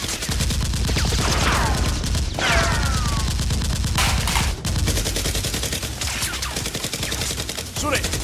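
Rapid automatic gunfire sound effects laid over a Nerf blaster fight, continuous volleys of shots, with falling whistles like passing rounds about one and two and a half seconds in.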